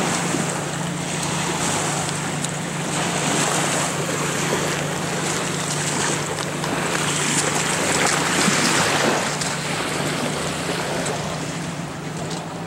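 Jet ski engine humming steadily, under wind buffeting the microphone.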